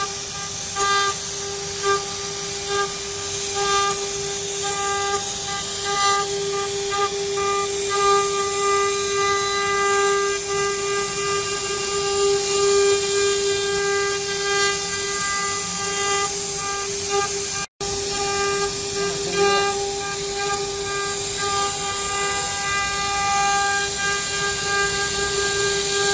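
CNC router spindle cutting aluminium: a steady high-pitched whine with a hiss of cutting noise over it. The sound drops out for an instant about two-thirds of the way through.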